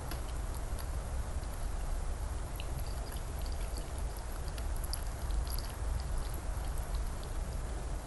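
Small wet, sticky clicks of fingers handling sauce-soaked raw salmon slices and shredded vegetables close to the microphone, over a steady low rumble.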